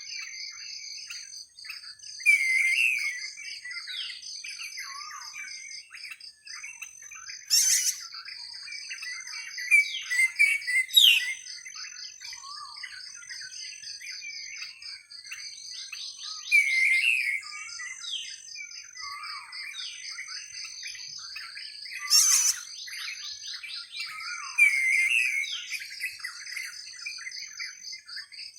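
Several birds chirping and calling in repeated short phrases, with a few downward-sliding whistles and two sharp, loud notes, over a steady, pulsing, high-pitched insect chorus.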